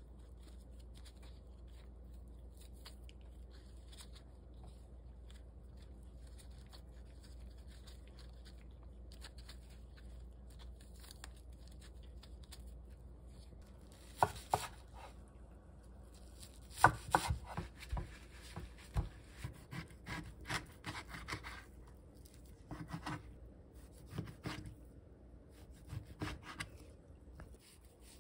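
Faint rustling as oyster mushrooms are torn apart by hand. About halfway through, a kitchen knife starts chopping garlic chives on a wooden cutting board: two single chops, then a quick run of chops, then a few more spaced out near the end.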